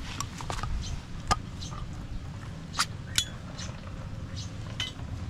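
Dishes and utensils clinking: several sharp separate clinks, one about three seconds in ringing briefly, over a steady low background rumble.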